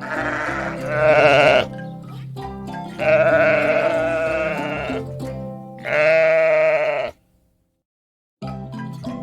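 Three wavering animal calls, each about one to two seconds long, over background music; all sound drops out for about a second near the end.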